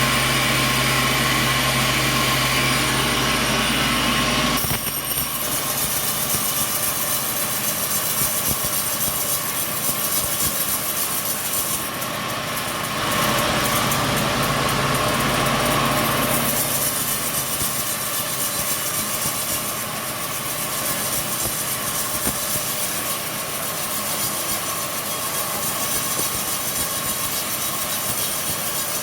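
Sawmill machinery running steadily. An engine hum with a steady low tone lasts about the first five seconds. Then comes a continuous noisy whir of saw machinery, which gets louder for a few seconds around the middle.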